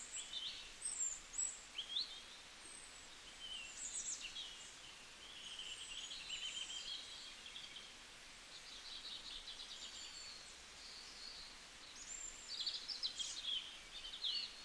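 Several small birds chirping and singing, with overlapping short calls, trills and fast rattling phrases, busiest at the start and near the end, over faint steady outdoor hiss.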